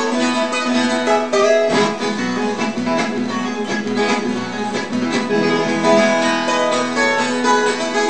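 Background music played on plucked guitar, a quick run of picked notes at a steady level.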